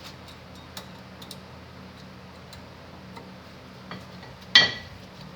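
New front brake pad being fitted into the caliper's pad clips on a Corvette C6: a few faint metallic clicks, then one sharp metallic clack with a short ring about four and a half seconds in.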